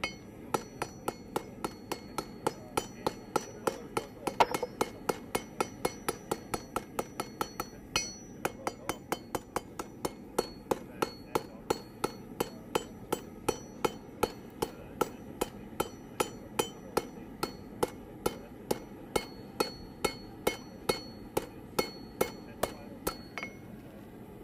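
Blacksmith's hammer striking hot steel on a 60 kg anvil in a steady rhythm of about three blows a second, each blow ringing briefly, as a forged piece is finished off; one blow about four and a half seconds in is louder than the rest.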